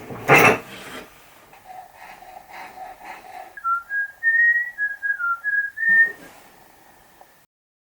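A sharp clack of a hard object near the start, then a person whistling a short tune of a few stepped notes that ends about six seconds in.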